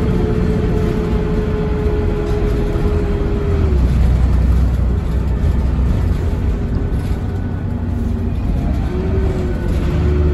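Bus diesel engine and drivetrain running under way, heard on board: a steady low rumble with a steady whine over it. The whine drops away about four seconds in and comes back near the end.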